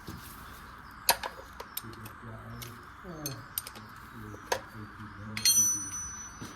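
Metal tools clinking and knocking against each other as someone rummages through them. Near the end one louder clink rings on briefly.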